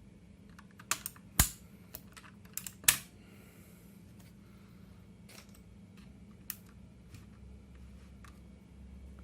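Key presses on an A4Tech Bloody B760 mechanical keyboard: a quick cluster of sharp clicks in the first few seconds, two of them loud, then a few scattered quieter keystrokes.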